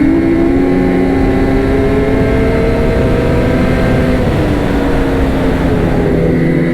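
Ski-Doo 850 two-stroke snowmobile engine running at high revs, its pitch climbing slowly as the sled picks up speed; it eases off briefly about four seconds in, then builds again.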